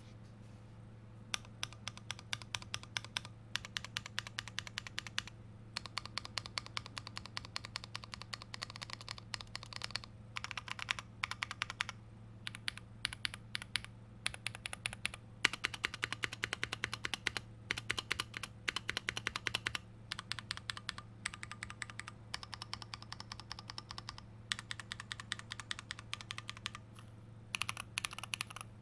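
Typing on a custom 75% mechanical keyboard with lubed Holy Panda tactile switches on a plastic plate and GMK stabilizers: runs of fast keystrokes broken by short pauses. The typing starts about a second in, and a steady low hum runs underneath.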